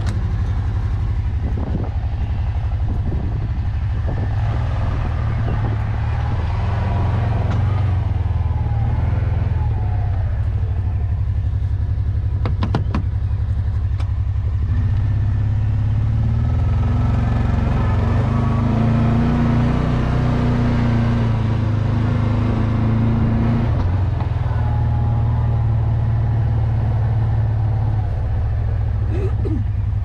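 Side-by-side utility vehicle's engine running as it is put in gear and driven, heard from the driver's seat. The engine speeds up for a long stretch in the middle, and there are a couple of sharp knocks a little after twelve seconds in.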